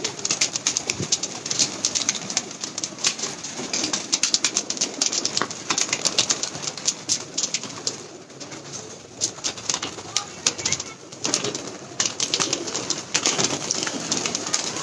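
Domestic pigeons in a loft cooing, with wings flapping and many quick sharp clicks.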